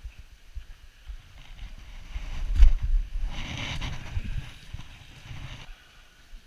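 Thumps and knocks as a person climbs down from a dock into a small fishing boat carrying a gas can. Wind buffets the microphone, and the loudest knocks come about two and a half seconds in.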